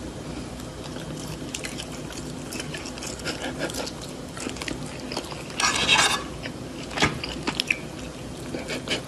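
Crunchy chewing and biting, a run of irregular crackles, with a louder crunching rustle about six seconds in.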